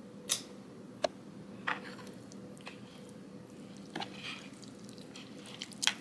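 Noodles being mixed with sauce in a dish: soft wet squishing, with a handful of sharp clicks and taps from the utensil.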